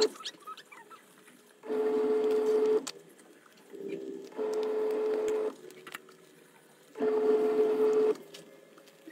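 Twin-tub washing machine in its wash cycle: the motor hums in bursts of about a second, with pauses of about a second and a half between them, as the agitator turns one way, stops and turns back. There are three full bursts.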